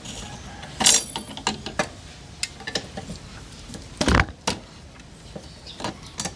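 Scattered metallic clicks and clanks of tools and parts being handled while dismantling a scooter's CVT drive pulley, with two louder knocks, one about a second in and one about four seconds in.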